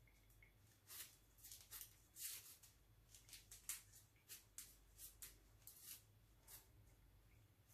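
Faint, crisp rustling and crackling of dry corn husks being handled and wound onto a husk flower, a quick run of short rustles over a low room hum.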